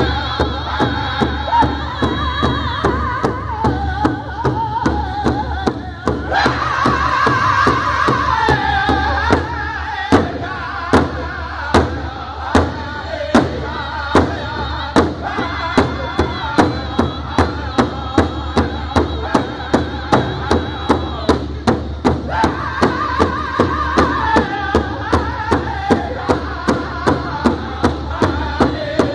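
Powwow drum group singing together over a steady unison beat on a large hide-covered powwow drum, struck by several drumsticks at once. The voices swell into a loud, high passage about six seconds in, and the beat stays even throughout.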